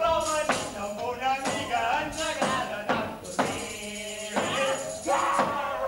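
Stage performers' voices singing, with a hand-held tambourine struck and jingling along; one note is held for about a second midway.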